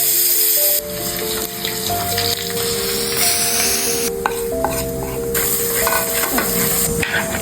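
Food sizzling as it fries in a pan, with stirring, heard in several short clips that change abruptly, over quiet background music.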